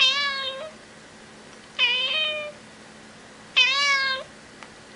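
Domestic cat meowing three times, about two seconds apart. Each meow is short and dips slightly in pitch before levelling off.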